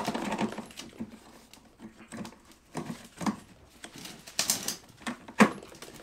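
Irregular clicks and knocks of an MBS 8-inch off-road wheel and its belt pulley being fitted onto an electric-skateboard truck axle, with the drive belt seated on the pulley. There is a brief rasp a little after four seconds in and a sharper knock about five and a half seconds in.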